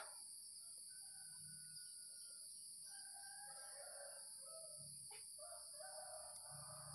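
Faint roosters crowing in the distance over a quiet outdoor background, once about three seconds in and again near the end.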